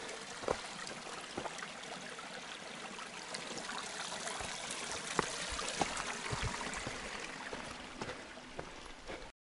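Small seasonal mountain stream trickling and gurgling over rocks, with scattered light footsteps on the gravel trail. The sound cuts off suddenly near the end.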